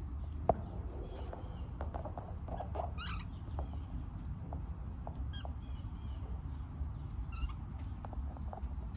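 Pet budgerigars and lovebirds chirping in short, scattered calls, with a quick run of chirps about three seconds in. A single sharp click comes about half a second in, over a steady low rumble.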